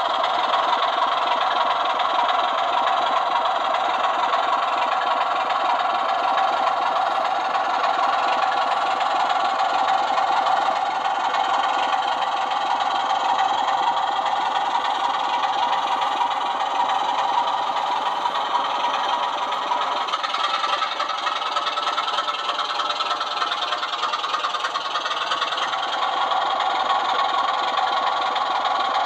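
Sound-fitted Class 24 model diesel locomotive's on-board sound decoder playing a recorded Sulzer diesel engine running, heard through its small built-in speaker, thin with little bass. The engine sound is steady and shifts in tone about twenty seconds in.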